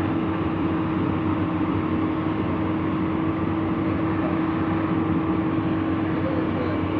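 Heavy diesel engine of construction machinery running steadily, a constant drone with a steady hum over it.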